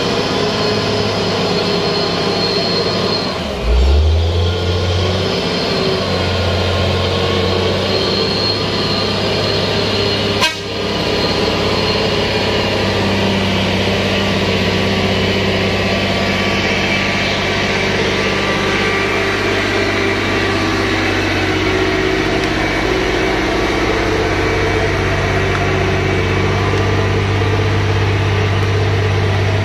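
Loaded Hino dump truck's diesel engine running as it drives slowly past on a muddy road, its note dipping and recovering about four seconds in. A single sharp knock about ten seconds in.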